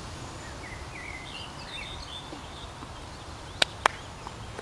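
Outdoor ambience with a steady low hiss and birds chirping, then two sharp clicks about a quarter of a second apart, about three and a half seconds in.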